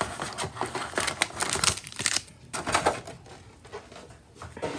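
Foil booster-pack wrappers crinkling and tapping as they are handled and set down: a busy run of quick crinkles and light clicks over the first couple of seconds, then quieter.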